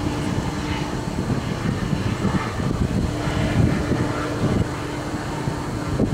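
Wind buffeting the microphone, over the steady hum of an approaching GO Transit MP40PH-3C diesel locomotive.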